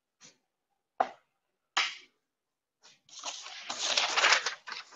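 Handling noise at a lathe: a few sharp knocks, then from about three seconds in a couple of seconds of clattering and rattling as tools and parts are handled.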